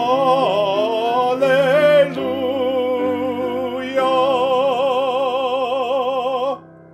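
A solo singer, with piano accompaniment, sings the hymn's final 'Alleluia' in a few long notes with wide vibrato. The last note is held for about two and a half seconds and cuts off about six and a half seconds in.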